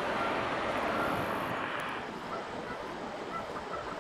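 Steady mechanical noise from a large tanker ship's engine and machinery passing close by, an even drone that becomes a little quieter about two seconds in.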